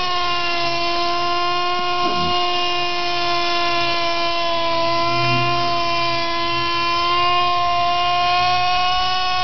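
Lite Machines Model 110 RC helicopter's .07 two-stroke glow engine running at flying speed: a steady high-pitched buzz whose pitch wavers slightly as the helicopter flies.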